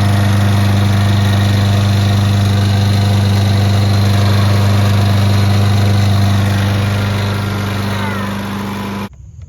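Craftsman Gold lawn mower's small petrol engine running steadily at a constant speed, a loud, even hum. It eases slightly toward the end and then cuts off abruptly.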